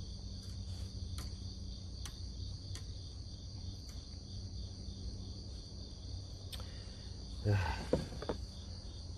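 A steady, high-pitched drone of summer insects, with a brief cluster of knocks and rattles about seven and a half seconds in.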